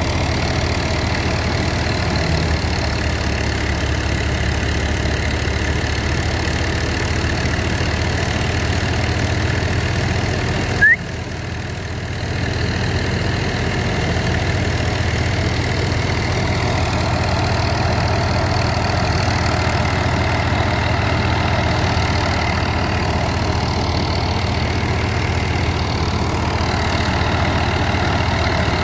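Fiat 480 tractor's three-cylinder diesel engine running steadily at a low, even speed. About eleven seconds in there is one brief sharp sound with a short rising squeak, and the engine sounds briefly quieter just after it.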